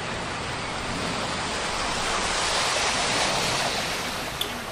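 Rushing, splashing water as a vehicle's tyres plough through deep standing floodwater on the road. It swells about two to three seconds in and eases toward the end.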